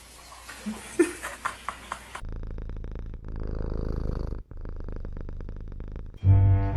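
Domestic cat purring close to the microphone: a steady, rapid pulsing rumble that runs for about four seconds, with a short break partway through.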